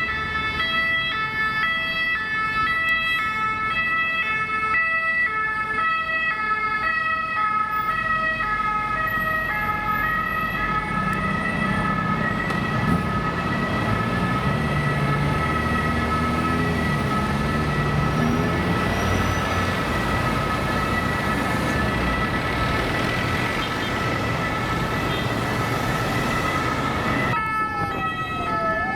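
French emergency-vehicle two-tone siren alternating between two pitches for the first eight seconds or so, over a steady high siren tone and traffic rumble. Near the end a siren glides down and then back up.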